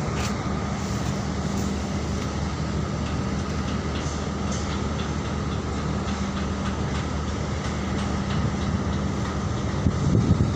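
Steady low drone of a ship's engines and machinery heard from the deck while the vessel is under way, a constant hum over a rushing noise. It grows rougher and louder near the end.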